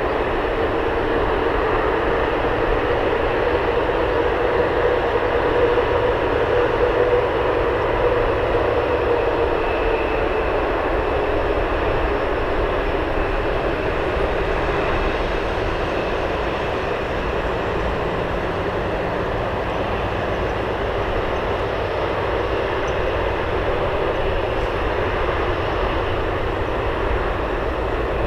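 Jet airliner's engines, a steady dense noise with a humming tone that drops slightly in pitch about nine seconds in.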